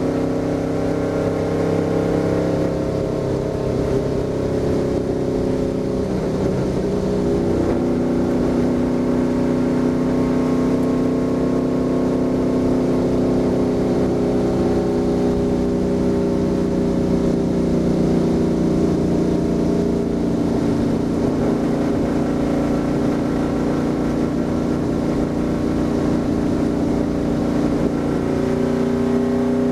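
Stock car's V8 engine running hard at speed, heard from inside the cockpit: a steady drone whose pitch sags a little a few seconds in and again near the end, then climbs back.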